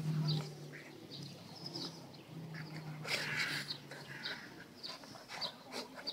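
A pit bull and a black labrador play-fighting: low growling that comes and goes, with short breathy snorts and scuffling.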